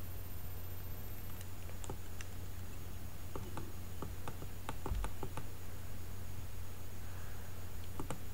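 Irregular clicking of computer keyboard keys being typed, starting about a second and a half in, over a steady low hum.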